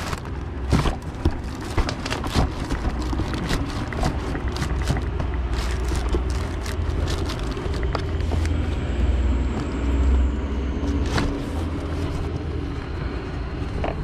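Cardboard box flaps rustling and scraping, with a string of sharp knocks and bumps as a boxed vacuum cleaner is worked out of its packaging. A steady low rumble runs underneath.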